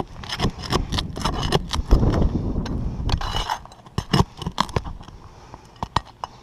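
Flat steel pry bar scraping and clicking against asphalt shingles and roofing nails as the nails are pried up and a damaged shingle is worked loose. Irregular clicks and scrapes, busiest in the first three seconds or so and sparser after.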